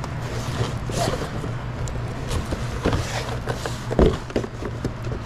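Long cardboard box holding a roll of window tint film being handled and opened: irregular rustling and scraping, with a sharp knock about four seconds in, over a steady low hum.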